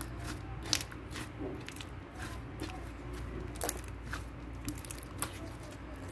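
Slime being squeezed and worked by hand, giving irregular sharp crackles and clicking pops.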